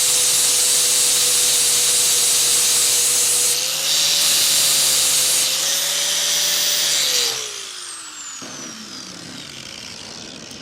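DeWALT DWE4011 angle grinder with a flap disc grinding welds on steel threaded rod, a steady motor whine over a harsh grinding hiss. About seven seconds in the grinding stops and the grinder spins down, its whine falling in pitch.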